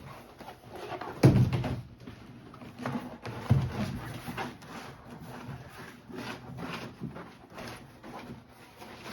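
A roll of thick liner being unrolled and handled on a table, making irregular rustles and knocks. The loudest knock comes about a second in.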